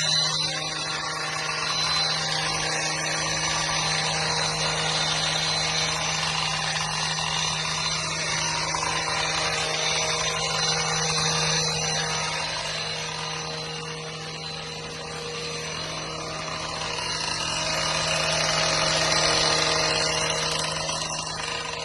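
Power tool motor running at a steady high speed, its pitch holding level throughout and dropping away right at the end as it winds down.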